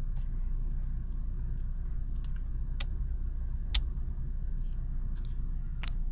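Ford Focus 1.0 EcoBoost three-cylinder turbo petrol engine idling steadily at just under 1000 rpm, heard from inside the cabin. A few sharp clicks sound over it, the loudest in the middle.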